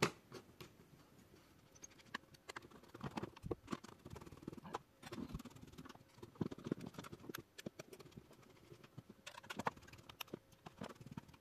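Faint, irregular clicks and taps of a screwdriver driving small M3 countersunk bolts into a 3D-printed plastic lid: the metal tip ticking on screw heads and the plastic.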